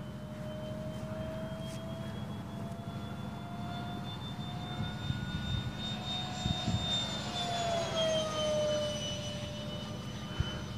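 Dynam Me262 RC jet's twin electric ducted fans whining in flight overhead; the whine rises slightly in pitch, then drops about seven seconds in as the model passes.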